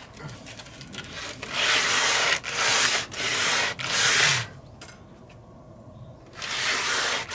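Wooden cladding boards of a garden house being sanded by hand along their grooves, the abrasive rasping over the wood in a run of strokes. There is a pause of about two seconds, then the sanding resumes near the end.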